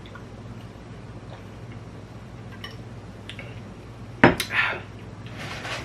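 Kitchen utensil knocking and scraping against a pot or dish while cooking instant noodles: a few faint clicks, then one sharp clank about four seconds in followed by short scraping, over a low steady hum.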